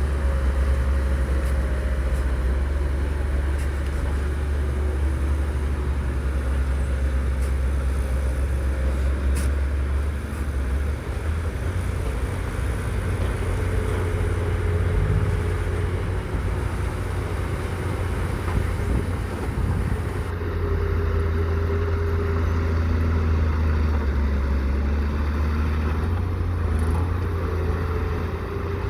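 Heavy machinery engines, dump trucks and a bulldozer, running with a steady deep rumble and a faint wavering whine on top.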